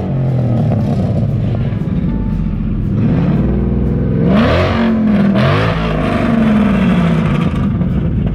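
VMP-supercharged Ford Coyote 5.0 DOHC V8 in a 1986 F-150, idling and revved several times, with the loudest rev about halfway through and a long fall in pitch back toward idle near the end.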